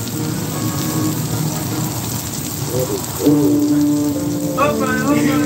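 Sausage patties and diced peppers and onions sizzling on a hot electric griddle, a steady hiss. About three seconds in, music comes in over it with a held low note, and a singing voice joins near the end.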